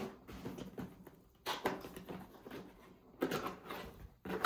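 Cardboard packaging being handled and opened: two brief bouts of rustling and scraping, about a second and a half in and again near three seconds in, with quieter handling noise between.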